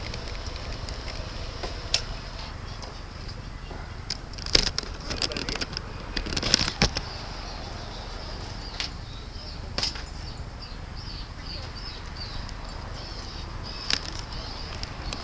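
Low, steady rumble of a scooter engine idling while stopped, with a steady high whine or hiss. Scattered clicks and rustles of handling close to the microphone come about two, four and a half, six and a half, ten and fourteen seconds in.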